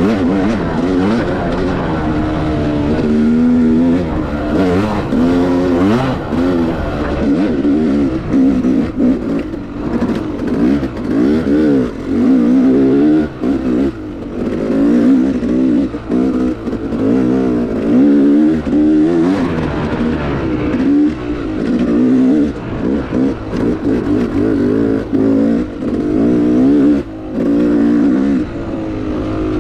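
Yamaha YZ250X 250cc two-stroke single-cylinder dirt bike engine running under constant throttle changes. It revs up and down over and over, with several brief drops where the throttle is chopped.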